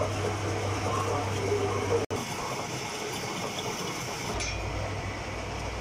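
Metal lathe running, its chuck spinning a truck drive shaft part while the cutting tool turns the steel, with light metallic clinking over a steady motor hum. The sound breaks off briefly about two seconds in.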